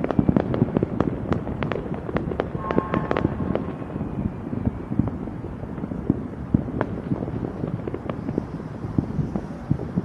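Fireworks going off in rapid, overlapping bangs and crackles, thinning out after about four seconds into scattered pops.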